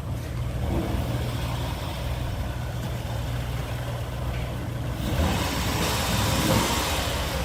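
A vehicle engine runs steadily with a low hum. About five seconds in, a louder rushing noise joins it.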